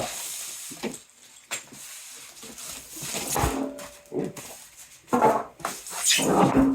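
A dog whining and grumbling in short bouts, the last and loudest about five seconds in.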